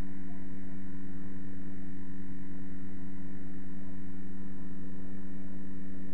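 Steady electrical hum: two strong low tones with fainter higher lines, unchanging throughout, a constant buzz in the recording rather than anything from the scene.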